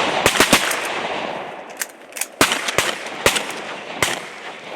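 Several hunters' shotguns firing a ragged volley at incoming geese: about eight to ten shots, several overlapping in the first second, then more spread out, each report trailing off in an echo.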